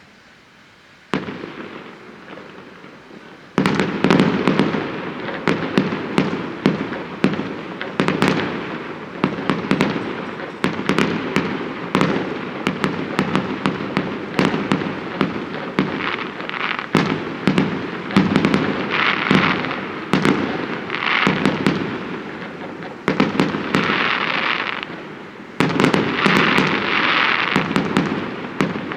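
Fireworks going off: a first bang about a second in, then from about three and a half seconds a dense, continuous run of bangs and crackling.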